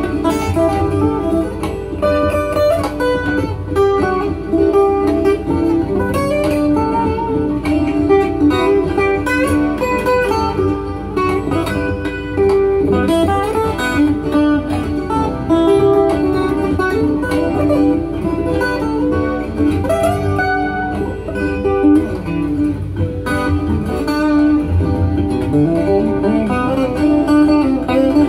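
Acoustic guitar improvising over its own repeating looped parts from a looper pedal, several guitar lines sounding at once without a break.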